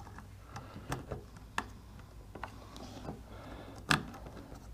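Small clicks and taps of plastic and metal parts as a Telemecanique contact block is fitted by hand onto a push button in a control box. A few light clicks are spread through, with the loudest single click about four seconds in.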